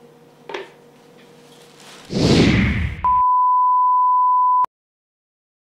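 A plate clinks once as it is set down on a wooden board. Then a loud burst of noise, then the steady single-pitch test tone that goes with broadcast colour bars, held for about a second and a half before it cuts off dead.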